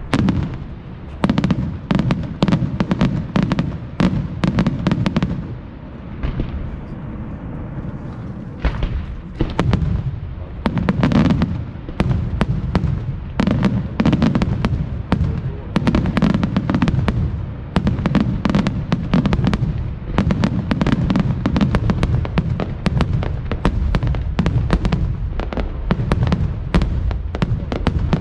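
Fireworks display: rapid, overlapping bangs from bursting shells over a continuous low rumble. The bangs thin out for a couple of seconds about six seconds in, then resume as a dense, unbroken barrage.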